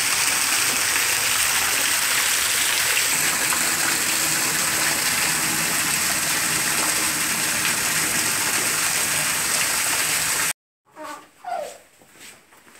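Small waterfall splashing steadily down onto rocks. The sound cuts off suddenly about ten and a half seconds in, leaving only a few faint sounds.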